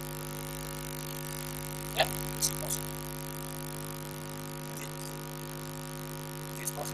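Steady electrical mains hum with several steady tones, strongest at a low pitch, under the room tone of a lecture room. A short sharp sound about two seconds in, and a couple of fainter brief noises just after it, stand out from it.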